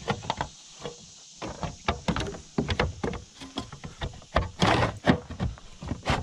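Irregular knocks, clicks and thuds of gear on the deck and hull of a plastic Vibe Shearwater 125 fishing kayak, as a fish measuring board and the paddle shaft are handled. The loudest knocks come about two-thirds of the way through.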